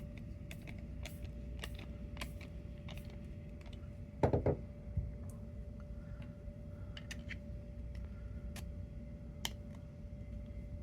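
Small irregular clicks and ticks of a screw and 3D-printed PETG enclosure parts being handled while a screw is put in, with one brief louder buzzing noise about four seconds in, over a faint steady hum.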